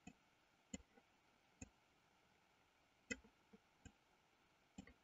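Faint, irregular clicks of a computer mouse, about nine of them, the loudest about three seconds in, over near-silent room tone.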